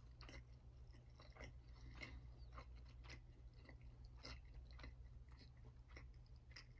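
Faint close-miked chewing of a mouthful of hash browns and eggs: soft, irregular wet clicks and smacks about twice a second, over a low steady hum.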